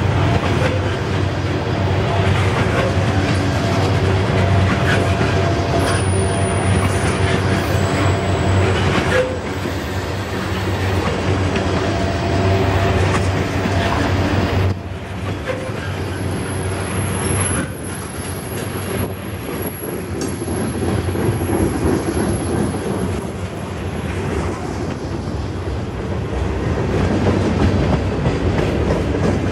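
Freight train of tank cars rolling past close by: a steady rumble with steel wheels clattering over the rail joints. A faint high squeal from the wheels comes in twice, about six seconds in and again after about sixteen seconds.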